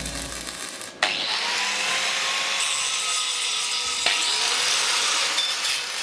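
Angle grinder grinding a forged steel door handle held in a vise: a steady whine over a harsh grinding noise that starts suddenly about a second in.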